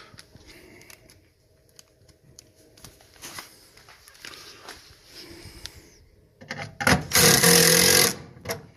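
Light scattered clicks and knocks of furnace parts being handled. Near the end comes a loud burst of noise with a steady hum under it, lasting about a second.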